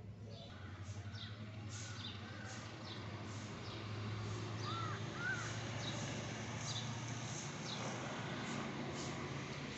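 Birds calling: a string of short, high chirps about once or twice a second, with two short, lower calls about halfway through, over a steady low hum.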